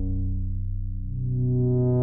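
Sequential Prophet-6 analog polyphonic synthesizer holding a sustained chord that has gone dark and mellow. About a second in a new note enters, and the tone starts to brighten.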